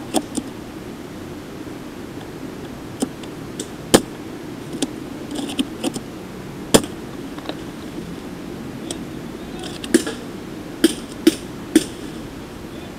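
Scattered sharp clicks and snaps over steady background noise, the loudest about four seconds in and three in quick succession near the end.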